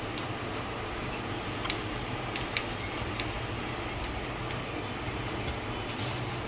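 Steady low background hum with a handful of light, sharp clicks and ticks scattered through the middle, and a brief hiss near the end.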